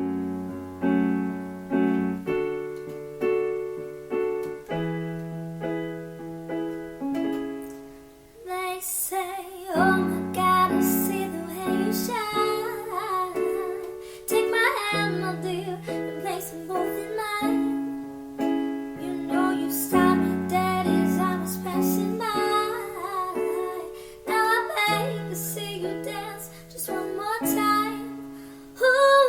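Piano playing a repeated chord pattern on its own, then a woman's singing voice comes in about eight seconds in over the piano.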